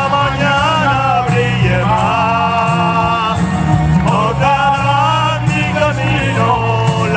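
Live ballad music: a man singing long held notes with vibrato over a steady band or backing track.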